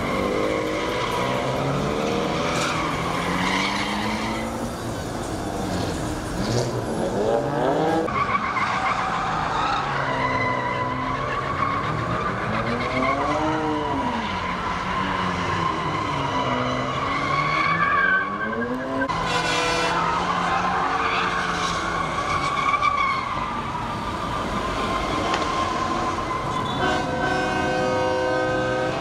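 Car engines revving up and down over and over while tires squeal on the pavement, as cars do donuts. Near the end a horn blares for a couple of seconds.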